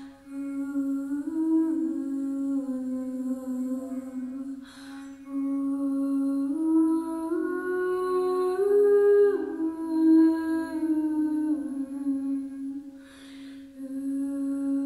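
A singing bowl rubbed around its rim with a wooden mallet gives a steady, slightly pulsing ring. Over it a woman hums a slow wordless melody that steps up and down in pitch, pausing for breaths about five seconds in and again near the end.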